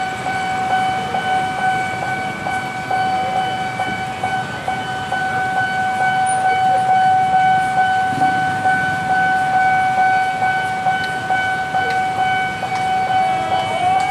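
Level crossing warning alarm sounding one steady unbroken tone, over the low running noise of a diesel locomotive approaching slowly.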